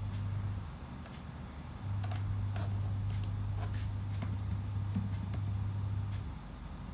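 Typing on a Dell laptop's keyboard: scattered light key clicks over a steady low hum that drops out twice, about a second in and near the end.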